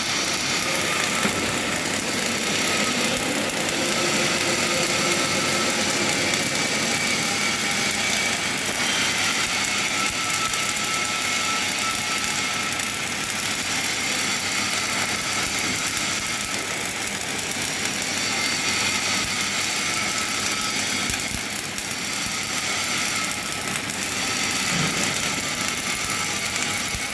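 Flux-cored arc welding with 1.2 mm wire from a KOWELD CS71 welding carriage running a long fillet weld: a steady crackling hiss of the arc that holds even throughout.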